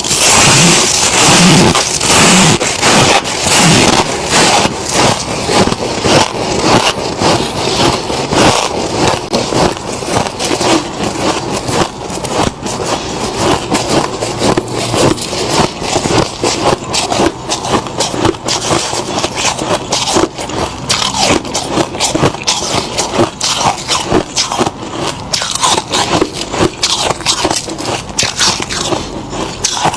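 Deep-freezer frost crunching close to the microphone: a dense, continuous run of crisp crunches and scrapes as the frost is scraped loose and bitten and chewed.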